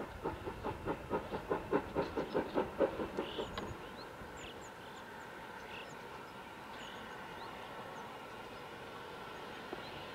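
Rhaetian Railway G 4/5 steam locomotive working, its exhaust beats coming about five a second, then dying away after nearly four seconds, leaving a steady low background.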